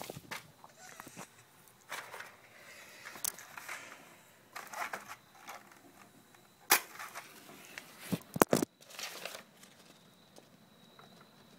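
Handling and rustling of a paper photo print, with scattered sharp clicks. The loudest are one click about two-thirds of the way in and a quick run of three just after it.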